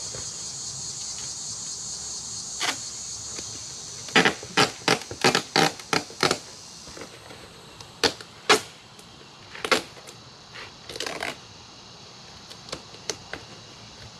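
Sharp handling knocks and taps from work on a foam archery target and its cardboard: a quick run of about seven, roughly three a second, a few seconds in, then a few more scattered ones. Crickets chirp steadily behind them, fading somewhat halfway through.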